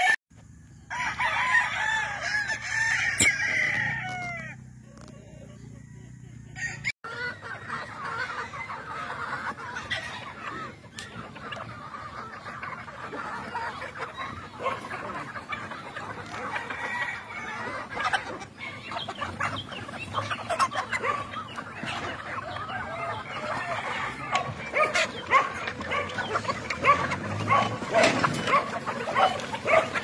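A gamefowl rooster crows once, a long call lasting a few seconds. Then a large feeding flock of gamefowl chickens clucks and calls over one another, with many short clicks throughout.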